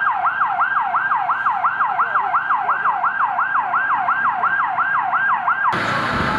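Emergency vehicle siren in a fast yelp, its pitch rising and falling about three and a half times a second. It cuts off suddenly near the end, giving way to a loud, even rush of noise.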